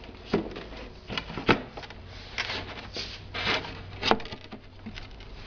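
Scattered knocks and clicks of wooden table panels being handled and fitted, with dowels being seated into holes in the base, and brief scraping between the knocks.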